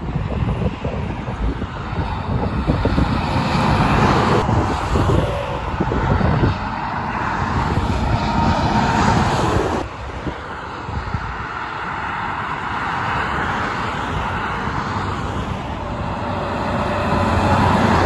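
Interstate highway traffic: tractor-trailers and cars pass with a steady rush of tyre and engine noise, and wind buffets the microphone. The sound changes abruptly about ten seconds in and swells near the end as a semi-truck passes close by.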